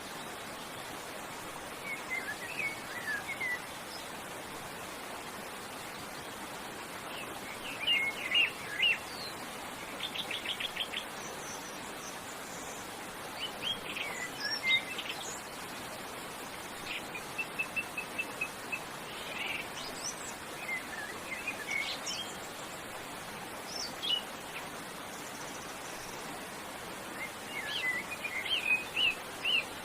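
Songbirds singing short chirping phrases and trills every few seconds, one a quick rattling trill and one a run of evenly repeated notes. Under them is a steady rush of waterfall water.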